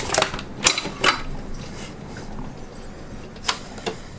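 A few sharp clicks and knocks of hand work on engine parts: several close together in the first second or so, then two more near the end.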